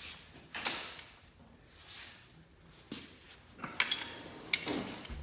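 A few sharp metallic clinks and knocks from tools and engine parts being handled during an engine teardown, spaced a second or more apart, the loudest a little before the end.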